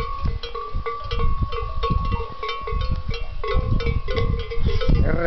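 Bells on a herd of Tudanca cows clanking and ringing irregularly as the animals move about, many overlapping strikes over a low rumble.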